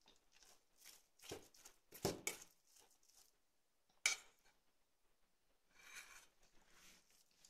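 Small, quiet handling sounds of a toddler fiddling with a cut lemon half: a few soft rustles and scrapes, a sharp click about four seconds in, and a brief wet sound near six seconds as he sucks on the lemon.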